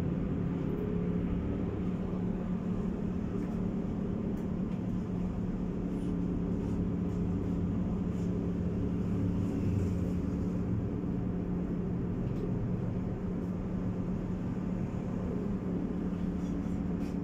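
Tatra T4R tram running along its route, heard from inside the passenger car: a steady low hum with a few held tones over the rumble of the running gear.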